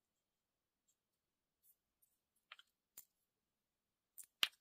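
Near silence broken by a few small clicks: two faint ticks in the middle and a sharper click near the end, from small objects being handled.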